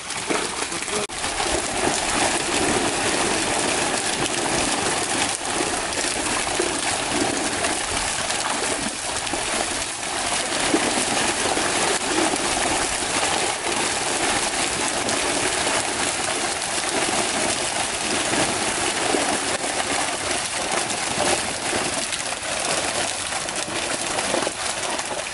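Hundreds of netted fish thrashing in the shallows, a steady dense splashing of water as they struggle in the drawn-in seine net.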